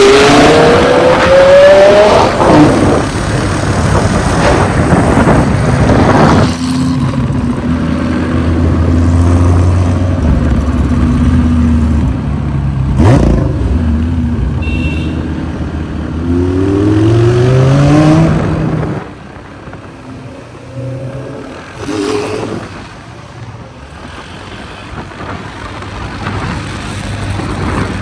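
Lamborghini Gallardo's V10 engine revving and accelerating, its note climbing near the start and again about two-thirds of the way through. Between the two climbs it runs more steadily, and after the second it drops away to a quieter level.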